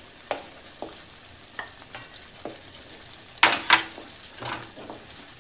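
Wooden spatula scraping ginger-garlic paste out of a small bowl and stirring a thick masala paste in a steel kadhai, with a scatter of knocks on the bowl and pan; the two loudest come close together a little past halfway. Under them, a faint sizzle of the masala frying in oil.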